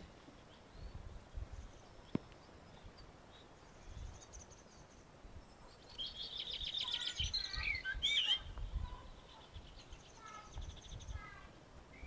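Small songbirds singing in a spring garden. A louder run of rapid, high trilling notes comes about six seconds in, with fainter high trills before and after. Intermittent low wind rumble on the microphone runs underneath.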